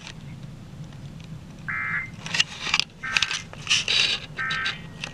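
Three short Emergency Alert System digital data bursts, each a harsh two-tone squawk, come about a second and a half apart. They are the end-of-message code that closes a National Weather Service warning. They play over radio static crackle and a steady low hum.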